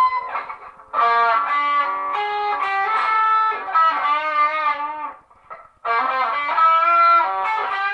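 Electric guitar playing a lead line of single sustained notes with bends and vibrato. It stops briefly about five seconds in, then resumes and ends on a held note.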